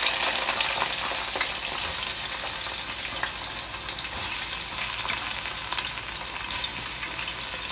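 Sliced red onions sizzling in hot oil in a pot, loudest at the start and easing slightly, as a spoon stirs them now and then.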